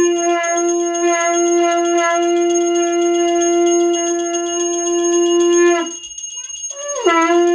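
A conch shell (shankh) blown in one long steady note that sags and breaks off about six seconds in, then sounds again a second later. Under it a small hand bell rings rapidly throughout: the conch and bell of a Hindu aarti.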